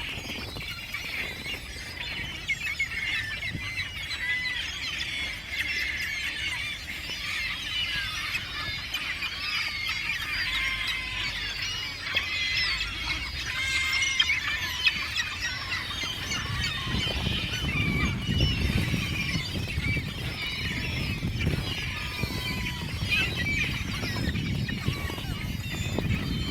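A big flock of gulls and ducks calling over one another in a dense, unbroken chorus of high cries. About two-thirds of the way through, a low rumble joins underneath.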